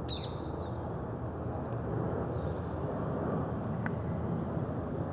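Steady low outdoor background rumble of distant city traffic, with a short high bird chirp right at the start and faint thin high whistles later on.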